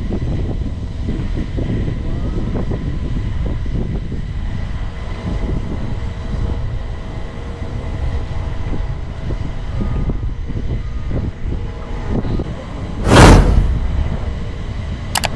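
Wind buffeting the microphone, a steady low rumble. About thirteen seconds in a loud whoosh sound effect sweeps through, and a sharp click comes right at the end.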